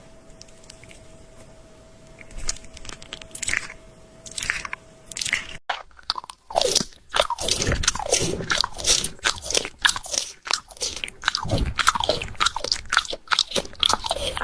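Close-miked crunchy eating: sharp bites and chewing on something hard and brittle. The bites are sparse at first and become rapid and continuous about six seconds in. A faint steady hum sits under the quiet opening and stops after about five seconds.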